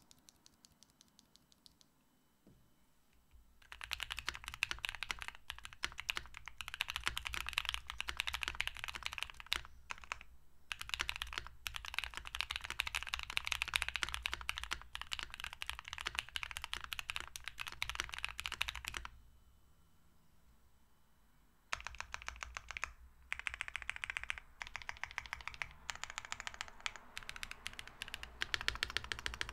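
Typing on a Keychron Q1 V2 mechanical keyboard modded with PE foam and polyfill, with lubed and filmed Gateron Ink Black V2 linear switches and PBT keycaps. After a few faint ticks comes a fast run of keystrokes lasting about fifteen seconds, then a pause of about three seconds, then a second run.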